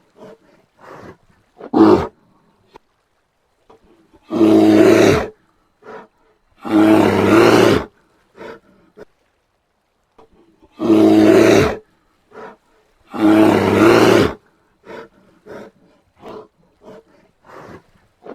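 Brown bear roaring: four long, loud roars of about a second each, in two pairs, with short grunts between them.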